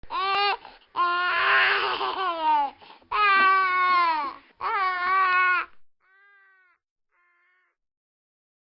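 A baby crying: four loud wailing cries that fall in pitch, then two faint ones after about six seconds.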